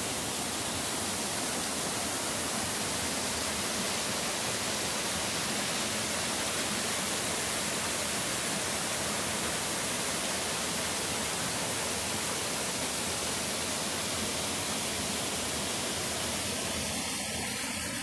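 Steady rushing of a small waterfall and its stream, running full with spring water.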